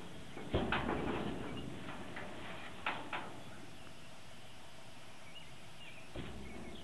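Thumps and knocks in a stock trailer as the horse moves in it: one heavy thump about half a second in, then lighter knocks, a pair around three seconds and one more near the end.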